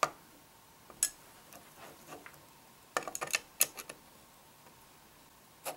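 Sharp metallic clicks and taps of an Allen key working the bottom screws of a LaRue LT150 optic mount, a few single clicks with a quick cluster about three seconds in.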